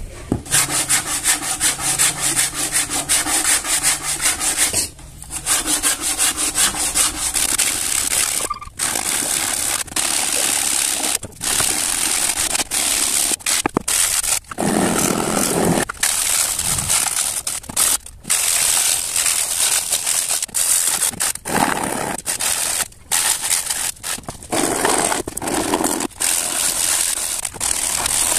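Plywood speaker box being sanded by hand, a fast back-and-forth scratchy rubbing with a few short pauses between runs of strokes, smoothing the wood surface.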